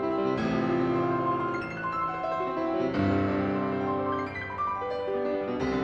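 Instrumental background music with piano, sustained chords changing every few seconds.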